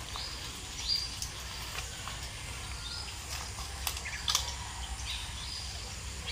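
Outdoor ambience by a ditch: a few short, high chirps about two seconds apart over a steady low rumble, with two or three sharp clicks in the middle.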